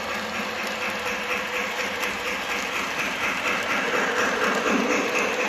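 Lionel LionChief Union Pacific Flyer O-gauge toy train running on its track as its freight cars pass close by: a quick, even rattle of wheels on the rails over a steady motor hum.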